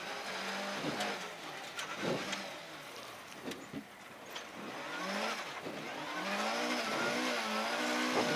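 Rally car engine heard from inside the cabin. It eases off to low revs around the middle as the car slows for a hairpin right, then pulls away with several rising sweeps in revs. Scattered sharp knocks come through as well.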